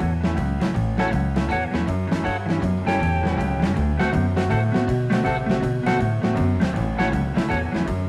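Background music: an upbeat swing-style tune with plucked guitar and a steady beat.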